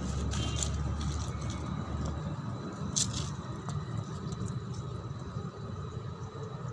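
Steady low rumble of outdoor background noise, with a single sharp click about three seconds in.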